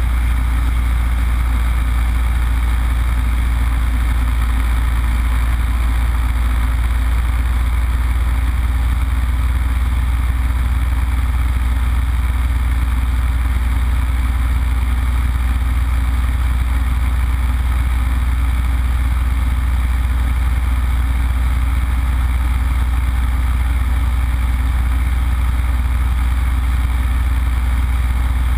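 Yak-52's nine-cylinder Vedeneyev M-14P radial engine and propeller running steadily in flight, a deep, even drone heard inside the closed cockpit canopy.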